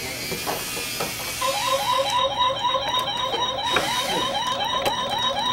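Battery-powered children's toy tool playing its electronic sound effect: a warbling chirp repeated about four times a second, starting about a second and a half in, after a hissing whir.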